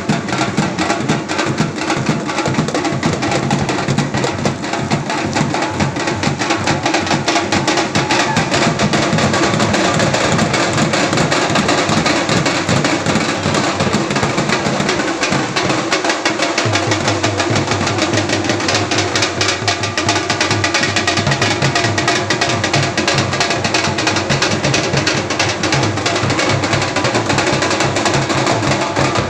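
Several large dhol drums with steel barrel shells, beaten with sticks in a dense, continuous rhythm.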